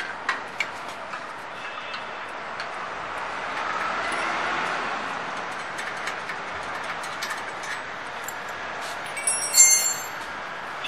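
A few light metal knocks as an electric motor is handled into a steel machine frame, over steady background noise. Near the end, a short bright jangle of small metal hardware clinking together in a hand, the loudest sound here.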